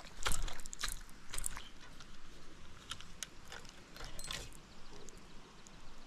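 Irregular sharp clicks and knocks from handling a spinning rod and reel close to the microphone, with a faint low rumble underneath.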